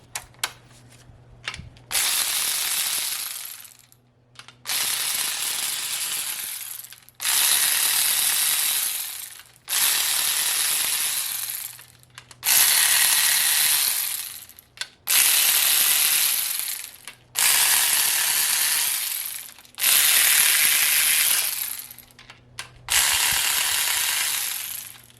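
A hand socket ratchet clicking as bolts are backed out of an LS V8 engine block, likely the main cap bolts. It comes in about nine runs of a couple of seconds each with short pauses between them, one run for each swing of the handle.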